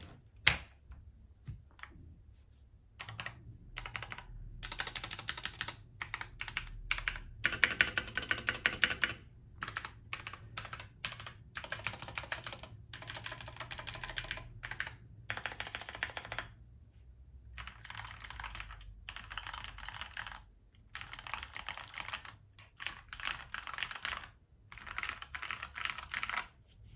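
Typing on a KPrepublic XD87 hot-swap TKL mechanical keyboard: runs of rapid keystrokes broken by short pauses, with one loud single key strike about half a second in.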